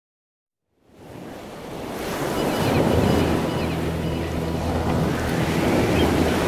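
Ocean surf breaking with wind, fading in from silence about a second in, with a low steady hum underneath.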